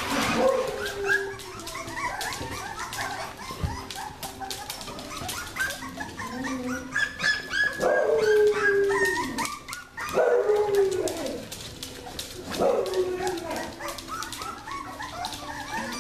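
A litter of young puppies yipping and whining over one another, with three longer cries that fall in pitch about halfway through and later.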